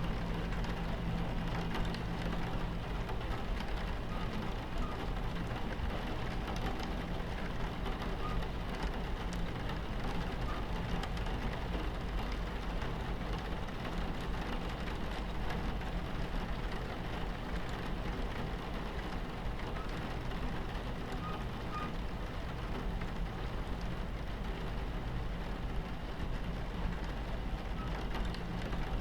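Steady rain against a train window over the low, continuous rumble of a moving train.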